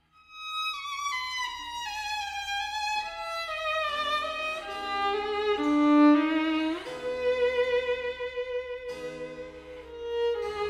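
Background music on violin: a slow melody that starts after a brief break, steps downward note by note, then holds a long note, over a low steady accompaniment.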